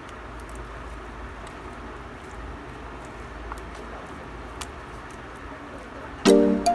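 Homemade glue-and-borax slime being pressed and played with: faint, scattered sticky clicks and pops over a steady hiss. Music comes in suddenly near the end.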